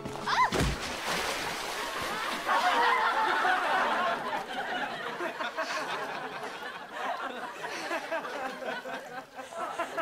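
A crowd laughing and chattering, loudest a couple of seconds in. It is preceded about half a second in by a brief falling swoop and a low thump.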